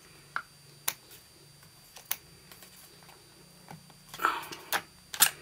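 Sharp metallic clicks and rattles from a Mossberg 590 Shockwave shotgun being taken apart by hand. A few single clicks come first, then a short clatter about four seconds in and the loudest click near the end.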